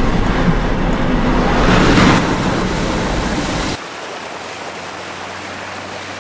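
Truck tyres ploughing through shallow floodwater, water rushing and spraying off the front wheel. The rush is loudest about two seconds in, then drops suddenly to a quieter steady wash.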